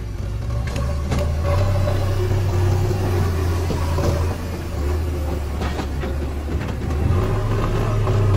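JCB 3DX backhoe loader's four-cylinder diesel engine running under load, its note rising and falling a few times as the front loader works. A few sharp knocks come through, mostly in the first couple of seconds and again after about five and a half seconds.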